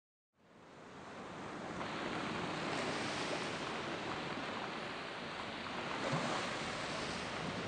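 Ocean surf washing on the shore, fading in over the first two seconds and then steady.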